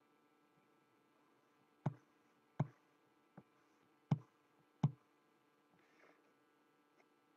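Four sharp knocks or taps, with a fainter one between the second and third, picked up through a video-call microphone over a faint steady hum.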